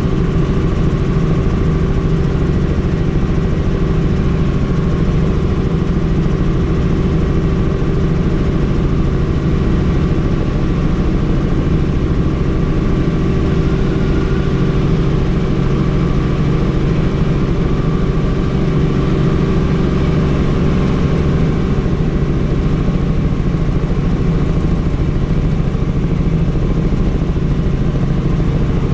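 Helicopter in flight: steady, loud rotor and engine noise with a constant hum.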